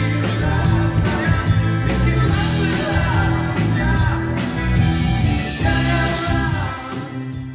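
Rock band music with a steady bass line, drum hits and melodic guitar or keyboard lines, fading out near the end.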